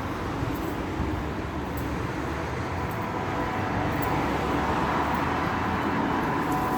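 A steady low drone with faint held tones over the rumble of city traffic, growing slightly louder partway through.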